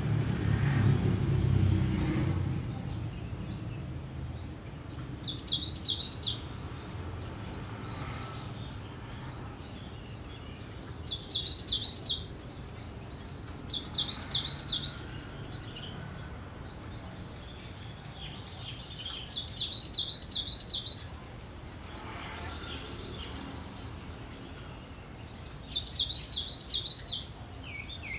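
Cinereous tit (gelatik batu) singing: five bursts of rapid, high repeated notes, each about a second long and a few seconds apart, with softer scattered chirps between them. A low rumble is heard during the first two seconds.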